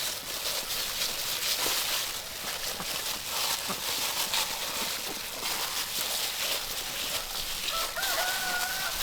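A rooster crowing once near the end, one long held call, over a steady background hiss.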